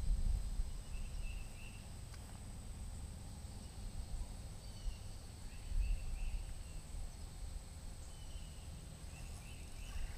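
Outdoor ambience: wind rumbling on the microphone with small groups of short bird chirps now and then, over a thin steady high tone.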